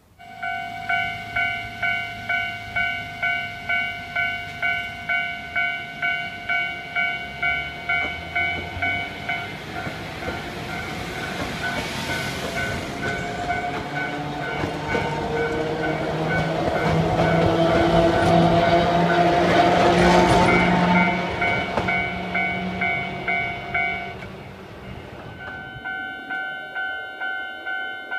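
Japanese level-crossing warning bell ringing about twice a second, then a Sangi Railway Hokusei Line narrow-gauge electric train passing with motor whine and wheel-on-rail noise that builds to a peak about two-thirds through. Near the end another crossing bell starts ringing at the same pace.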